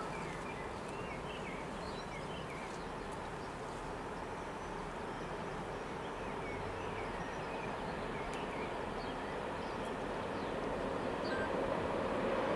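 Distant freight train approaching out of sight, a low rumble that grows steadily louder in the last few seconds, with birds chirping now and then.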